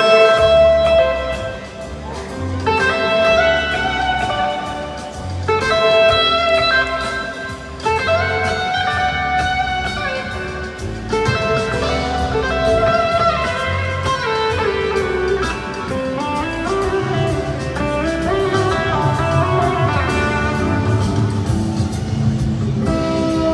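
Live rock band playing an instrumental passage: electric guitar lead lines with sustained, bending notes over bass and drums, heard from the audience in a large arena.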